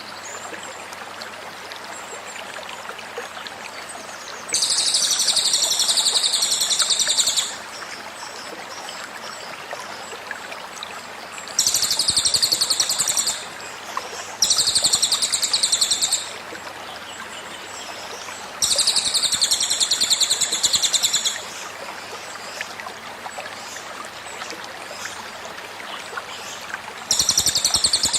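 Cililin bird giving its 'tembakan' call: five bursts of very rapid, high-pitched trilling, each about two to three seconds long. Between them runs the steady rush of a flowing stream.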